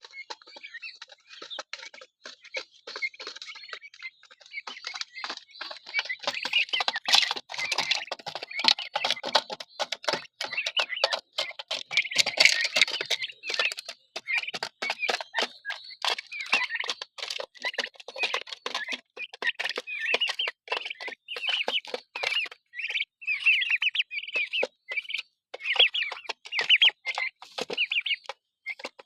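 A flock of six-week-old heritage turkey poults peeping and chirping continuously, with many quick sharp clicks of beaks pecking at their feed.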